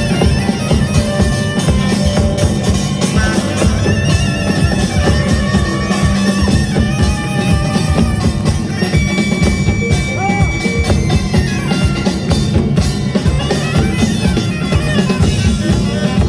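Live Korean samulnori percussion ensemble playing a fast, driving rhythm on drums and gongs, with a wind instrument carrying a melody with held notes and pitch bends over the beat.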